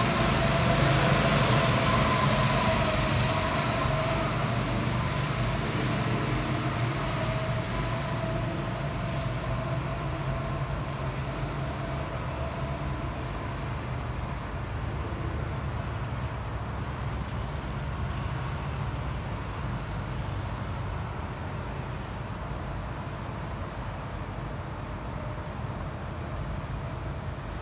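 Go-kart engines running on the track: a kart passes close at the start, its engine note fading over the first few seconds as it pulls away, then the karts' engines go on more faintly around the circuit.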